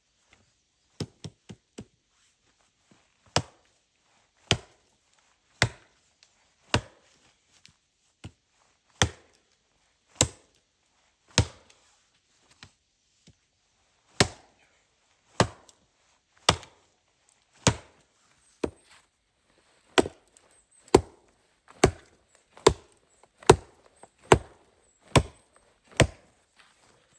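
Wood being chopped. A few light taps come first, then about twenty sharp blows roughly a second apart, coming a little faster in the last few seconds.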